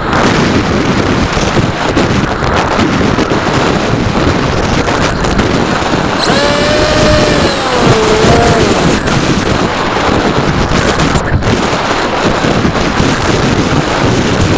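Loud wind rush over the onboard camera of a flying RC airplane, with the plane's motor running. For about three seconds mid-way a whine dips in pitch and rises again.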